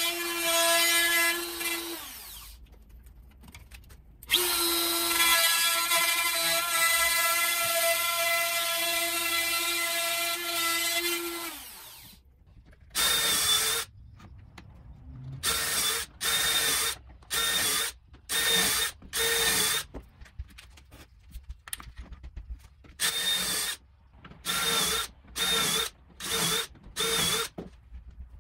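A motor runs at a steady pitch, winds down, starts again and winds down once more about halfway through. Then a DeWalt cordless drill bores shelf-pin holes through a Kreg shelf pin jig into a melamine panel, in about a dozen short bursts of under a second each.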